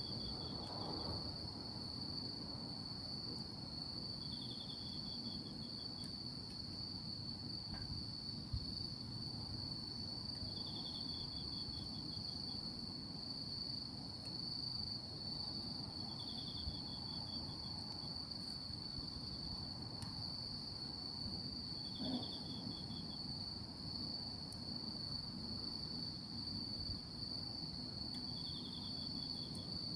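Night insects calling: one keeps up a continuous high-pitched trill, while another gives a short, rapidly pulsed chirp about every six seconds, six times. Under them a low steady hiss with a few faint pops, about eight and twenty-two seconds in.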